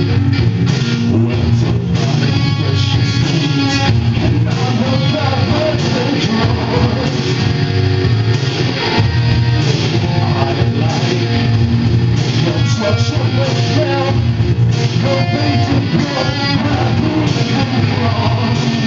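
A small band playing live, with electric guitar to the fore over a steady, heavy bass line.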